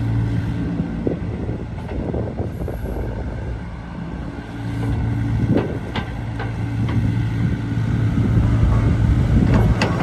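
Hyundai Robex 80CR-9A midi excavator's diesel engine running steadily. It eases off about four seconds in and picks up again a second later. Metallic clanks come around the middle and just before the end.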